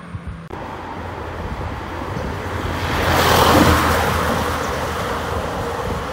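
A small box delivery truck passing close by: its tyre and engine noise swells to a peak about three and a half seconds in, then fades slowly as it drives away.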